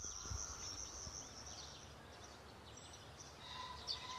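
Faint open-country ambience: a steady high insect buzz that fades out about halfway through, with a few faint bird chirps and a short steady note near the end.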